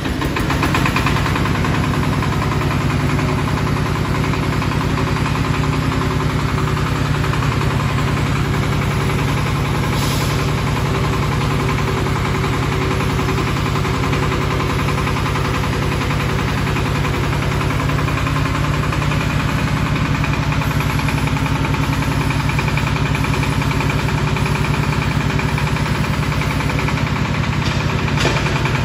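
Small trailer-mounted water-well drilling rig's engine running steadily, powering the rig's hydraulics while the drill mast is raised from the control levers.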